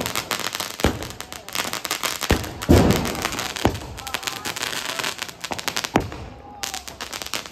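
Firecrackers going off: a rapid run of sharp bangs and crackling, with one loudest, ringing bang nearly three seconds in and another big bang about six seconds in.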